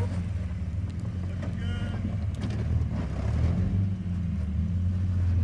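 Jeep TJ engine running at low revs as the rig crawls slowly over rock ledges, a steady low drone with small rises and falls.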